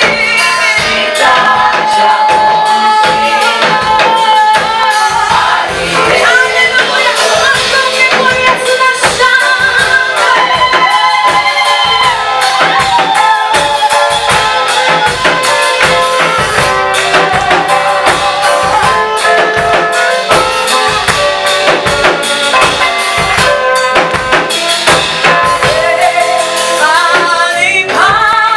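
Gospel praise-and-worship song: singers carrying the melody over a steady drum kit beat.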